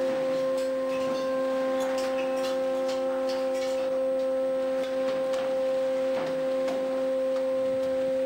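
A steady whine made of several held tones, the strongest mid-pitched, unchanging throughout, with light scattered clicks and knocks over it.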